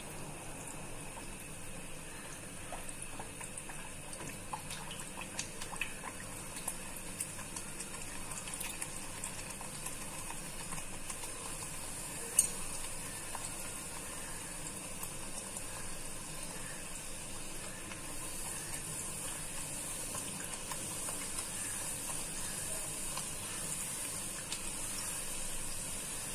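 Beetroot puri deep-frying in hot oil: a steady sizzle with many small crackles and pops, getting slightly louder in the last third. A single sharp click about halfway through.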